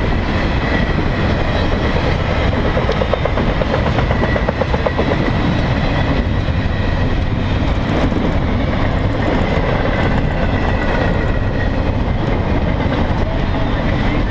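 Intermodal freight cars loaded with shipping containers rolling past on steel rails: a loud, steady rolling noise of the wheels, with a faint thin high tone and a run of rapid clicking about three to five seconds in.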